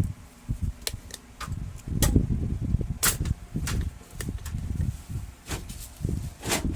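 Objects handled and rummaged through by hand, with low scuffing and bumping and a string of sharp clicks and knocks, the loudest about three seconds in and again near the end.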